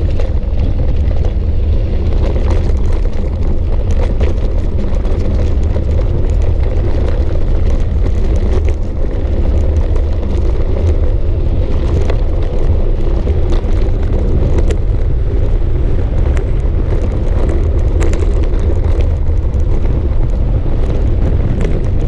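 A bicycle's tyres rolling over a loose gravel dirt track, with wind buffeting the action camera's microphone, heard as a loud, steady low rumble. Many small clicks and rattles are scattered through it.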